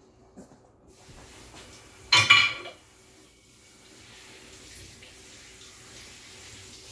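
Water running from a kitchen tap into the sink, with a loud ringing clatter of dishes about two seconds in.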